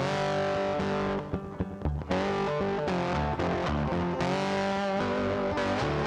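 Background music led by guitar with bass, playing steadily, with a brief drop in loudness about a second in.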